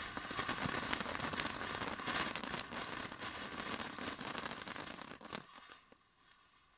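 Ground fountain firework spraying sparks: a steady hiss dotted with sharp crackling pops, which dies away about five seconds in.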